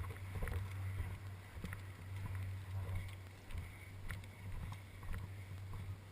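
Steady low rumble of wind on the microphone, with a few faint, scattered clicks.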